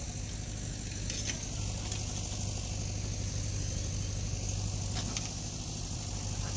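Farm tractor diesel engine running steadily, with a few faint clicks.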